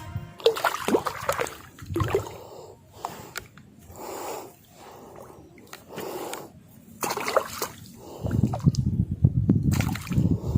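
Water splashing and sloshing in irregular bursts, with a heavier, lower wash near the end.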